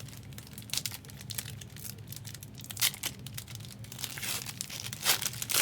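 Foil trading-card pack wrappers being torn open and crinkled by hand, in irregular crackly rustles with a few sharper tears.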